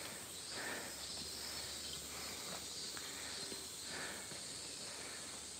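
Faint forest ambience: insects droning steadily and high-pitched, with a few soft scuffing sounds.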